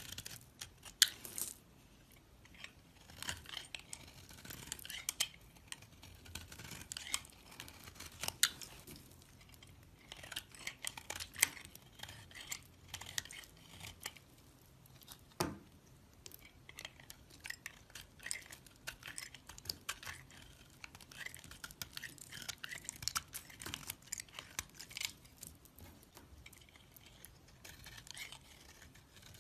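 A knife cutting and scraping through a bar of soap in irregular, crisp crunching strokes, with a dull knock about halfway through.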